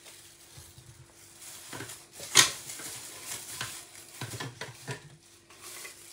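Apple pieces being put into an electric juicer's feed chute: light knocking and clatter from handling, with one sharp, loud knock about two and a half seconds in.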